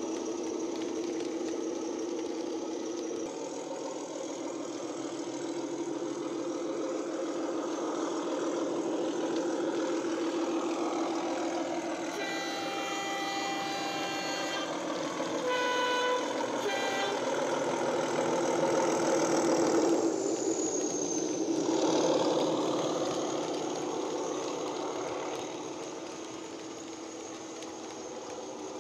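Model Class 31 diesel locomotive's ESU Hifi sound decoder playing the loco's diesel engine running steadily through its small onboard speaker. The two-tone horn sounds twice about halfway through, the first blast longer and higher than the second; the engine then grows louder for a few seconds before easing off.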